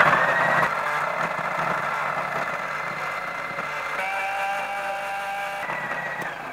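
Electric mixer grinder with a stainless-steel jar running at full speed, grinding fresh coriander, mint, curry leaves, ginger, garlic and green chillies with a little water into a wet paste. A steady motor whine that becomes more even about four seconds in, then cuts off at the very end.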